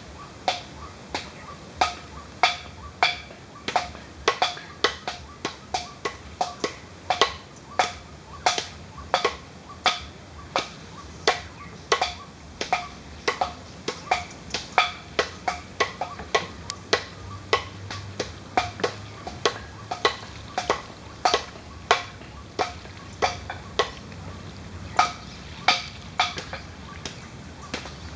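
A steady run of short, sharp clicks, about two to three a second, each with a slight ringing pitch, over a faint low hum.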